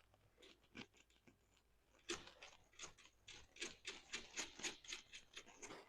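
Faint, irregular small clicks and ticks from hand work on a motorcycle clutch cable's adjuster as it is tightened back up. A couple of isolated ticks come first, then from about two seconds in a quicker run of clicks, several a second.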